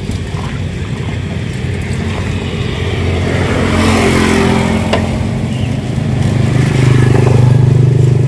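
Motorcycle and road traffic engines running on the street, the hum swelling as vehicles pass and loudest near the end. A single sharp click comes about five seconds in.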